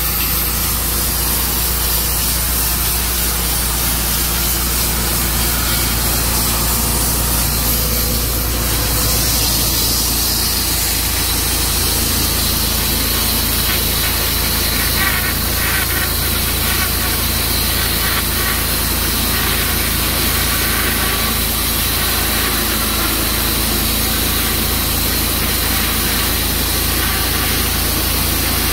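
Tru Cut sawmill's engine running steadily, its note shifting about ten seconds in.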